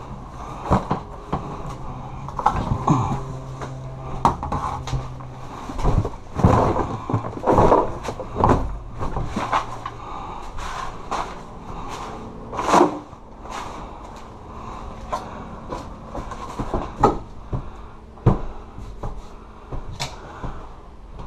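Rummaging through clutter: an irregular run of knocks, thumps and clatters as objects are moved and set down, mixed with short rustles of bags and cardboard.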